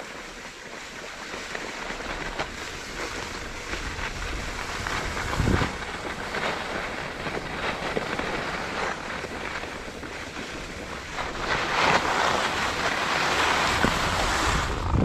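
Wind buffeting an action camera's microphone and skis hissing and scraping over packed snow during a downhill run, getting louder in the last few seconds. A single bump about five and a half seconds in.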